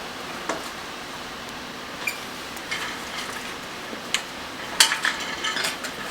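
Small hard objects clinking and tapping on a hard surface: a few separate sharp ticks, then a quicker cluster of clatters near the end, over a steady hiss.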